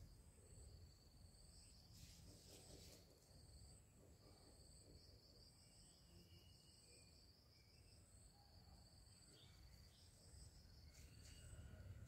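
Faint insects trilling, a high-pitched buzz held in long stretches with short breaks, with a few faint clicks about two to three seconds in.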